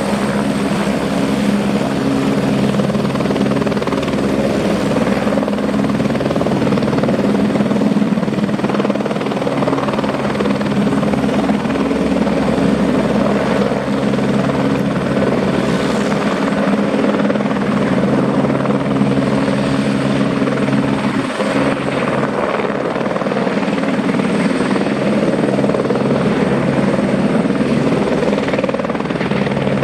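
Turbine helicopter running steadily, a continuous rotor and engine drone with a thin high-pitched turbine whine over it.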